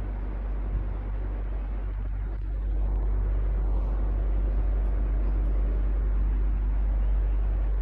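Electric fan running steadily: a low hum under an even rush of air, a little louder from about three seconds in.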